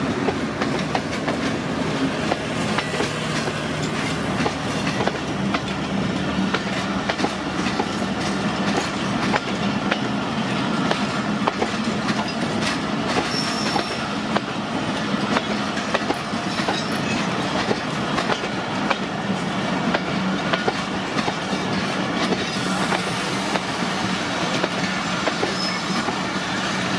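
Passenger express train rolling past close by, its ZCU-20-hauled coaches making a steady rumble as the wheels click over rail joints. Brief high wheel squeals come about halfway through and again near the end.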